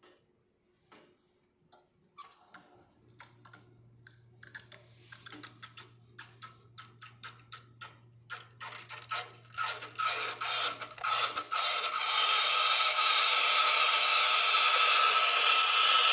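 Rancilio Silvia espresso machine's steam wand opened into a pitcher of rinse water: sputtering pops that come faster and louder, then, about three-quarters of the way in, a loud steady hiss of full steam.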